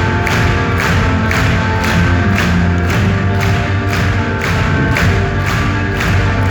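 Live pop-rock band playing an instrumental passage with sustained chords over a steady beat of about two strokes a second, recorded from the audience in a concert hall with poor, boomy sound.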